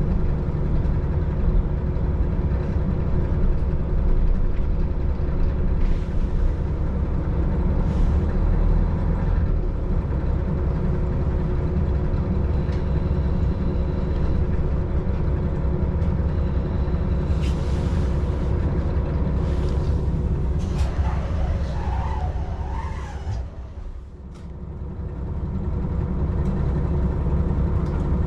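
KiHa 40 diesel railcar heard from inside while running: a steady low diesel drone with wheel and rail noise and a few sharp clicks. A brief wavering squeal comes about twenty-two seconds in, the drone drops away around twenty-four seconds, then builds back up.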